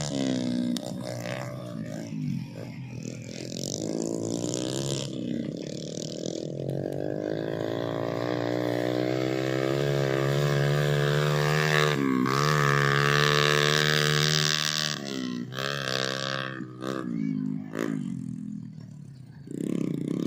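Trail motorcycle engines revving and labouring through a rice paddy, one bike loaded with sacks of harvested rice; the engine note rises and falls, with a sharp dip and recovery about twelve seconds in.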